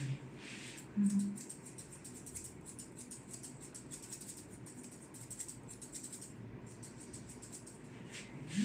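Grooming scissors snipping repeatedly through a Shih Tzu's coat, a long run of small, quick, sharp clicks.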